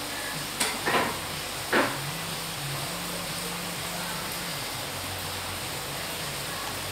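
Steady background hiss with faint low tones underneath, broken by three short knocks or clicks in the first two seconds.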